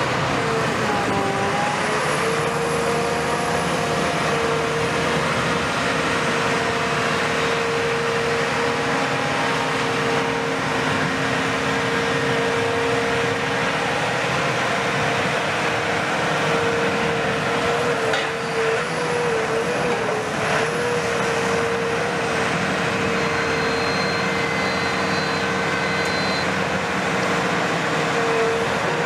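Caterpillar 340F UHD demolition excavator running, its Cat C9.3 ACERT diesel engine giving a steady drone with a steady whine over it. The whine wavers briefly about two-thirds of the way in.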